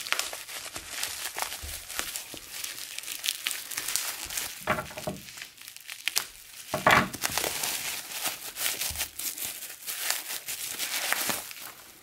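Bubble wrap and clear plastic wrap being pulled off a box by hand: continuous crinkling and crackling, with louder rustles about five and seven seconds in.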